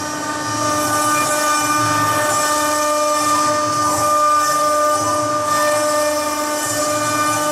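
CNC engraving machine's spindle running with a steady whine while a small cutter engraves a marble slab, with a fluctuating hiss from the cutting above it.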